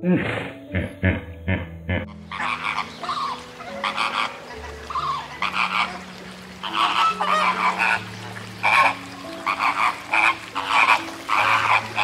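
A flock of flamingos honking, many short goose-like calls overlapping. It is preceded by a quick run of short low grunts in the first two seconds, over the hippo footage.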